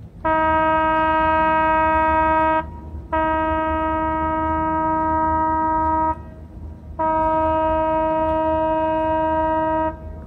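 A ship's horn sounding three long blasts of about three seconds each, each one a single steady tone with no change in pitch.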